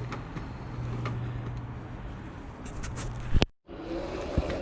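Sur Ron electric dirt bike under way, its motor and 420 non-O-ring primary chain drive running with a steady low hum; the primary drive is pretty quiet. Near the end there is a sharp click and the sound cuts out abruptly.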